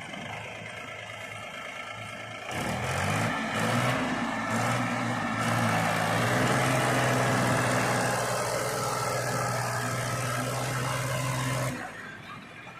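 Diesel engine of a backhoe loader or tractor running, revving up about two and a half seconds in and holding a high, steady speed, then dropping back near the end.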